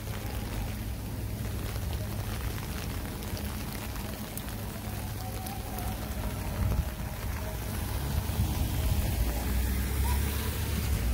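Steady rain hissing on a wet city street, with a low rumble of traffic driving over the wet pavement that grows louder in the second half.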